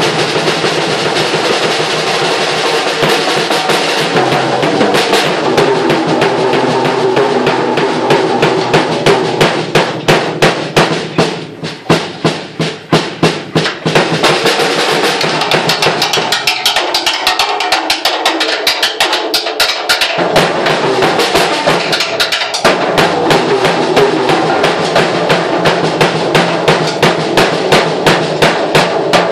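Stagg acoustic drum kit played in fast, dense rolls and beats on snare, toms, cymbals and bass drum. For a few seconds past the middle the bass drum stops, then the full beat comes back.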